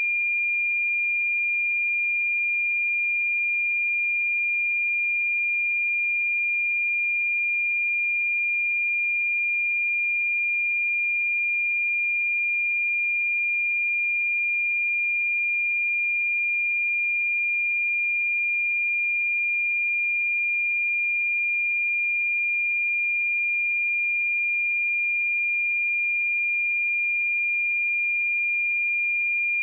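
A steady pure sine-wave test tone at 2406 Hz, one unbroken high-pitched tone held at constant level.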